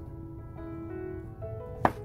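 Background music with held tones, and a single kitchen-knife stroke through a king oyster mushroom onto a wooden cutting board near the end.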